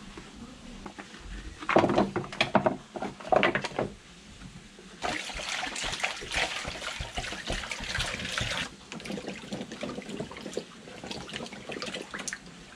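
Short cut pieces of wood clattering loudly into a plastic tub. Then water pours from a plastic jug over the wood for about three and a half seconds, starting and stopping sharply. Near the end the wet wood pieces knock together as hands stir them in the water.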